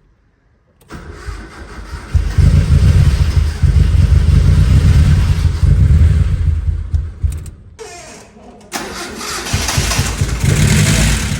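Freshly rebuilt car engine being started for the first time after the rebuild: it comes up from cranking and runs loudly for about five seconds, cuts out nearly eight seconds in, and is started again about a second later.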